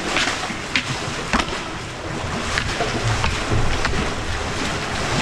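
Paddles stroking and splashing in the water and water rushing along the hull of a two-person marathon racing canoe paddled at sprint pace.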